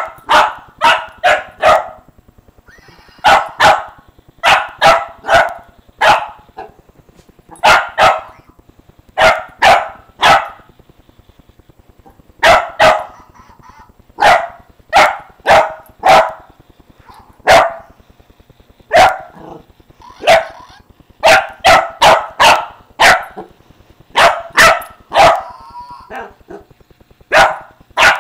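Small dog barking over and over at a mechanical toy hamster, in quick runs of two to five sharp barks with short pauses between.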